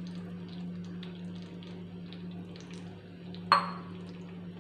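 Butter and oil sizzling faintly in a hot frying pan, with scattered small crackles over a steady low hum. There is a single sharp clink about three and a half seconds in.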